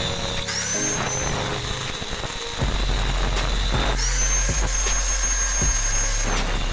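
Angle grinder cutting into the steel hub of a spoked cart wheel. Its high motor whine rises in pitch about half a second in and again about four seconds in as the disc comes off the metal, then drops near the end as it bites again. Background music plays underneath.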